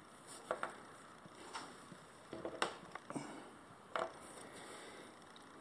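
A handful of faint, scattered clicks and light taps as hands handle rubber engine oil seals and set them down on a wooden desk.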